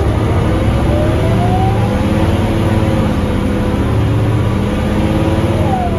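Diesel city bus engine pulling away and accelerating, a deep rumble with a whine that rises in pitch over the first two seconds. A second falling whine comes near the end.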